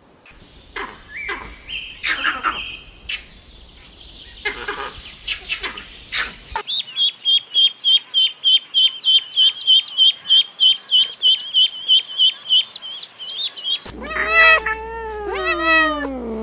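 Animal calls in turn: scattered high chirps and whistles, then a long run of rapid high chirps at about four a second, then a cat meowing near the end.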